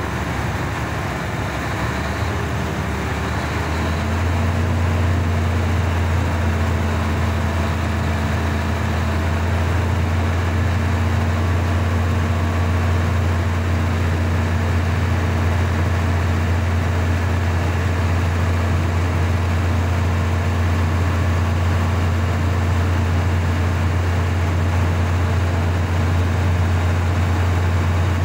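Mercedes-Benz Actros truck's diesel engine idling, heard from inside the cab: a steady low hum that steps up louder about four seconds in and then holds steady.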